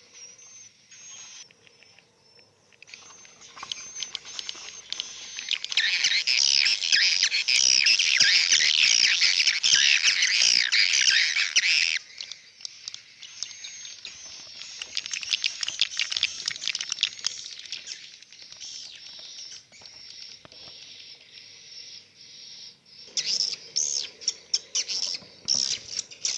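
A flock of swiftlets twittering with dense, rapid high chirps inside a swiftlet house. The chorus swells loud from about a quarter of the way in, thins out around the middle, and grows loud again near the end.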